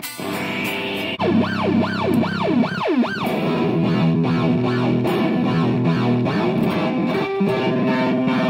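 Electric guitar played through a Magpie Pedals Fruits effects pedal. For the first couple of seconds the notes swoop up and down in pitch about three times a second, then settle into held chords.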